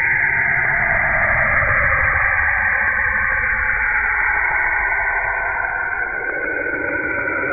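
Planetary 'space sound': spacecraft radio emissions turned into audio, a steady hiss in which a band of tone slowly sweeps down in pitch and then climbs again near the end.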